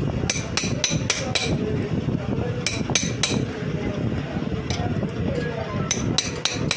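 Small sharp metallic clicks and taps, in irregular groups of two to four, from a screwdriver working against the camshaft sprocket bolts of a TVS Victor 3-valve engine as they are locked after tightening. Steady low background noise runs underneath.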